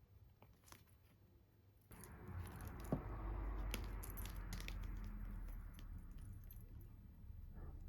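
Small objects being handled: a few light clicks, then about two seconds in a steady rustling begins, with scattered clicks and one sharp tap shortly after, easing off near the end.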